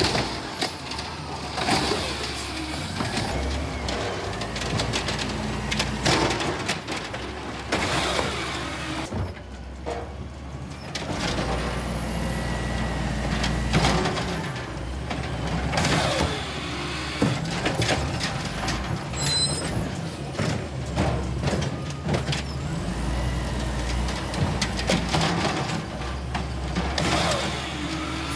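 Automated side-loader garbage truck at work: the hydraulic lifting arm whines and clanks as it dumps and sets down a cart. The engine swells several times as the truck pulls forward to the next cart, with air-brake hisses at the stops.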